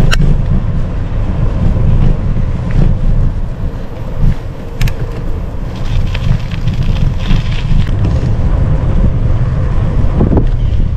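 Wind buffeting the microphone of a camera on a moving bicycle: a loud, steady low rumble, with a few sharp clicks.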